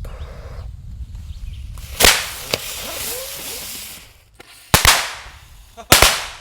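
Jumping jack firecrackers going off. A sharp bang about two seconds in is followed by a couple of seconds of hissing, then more sharp bangs come in quick pairs near the end.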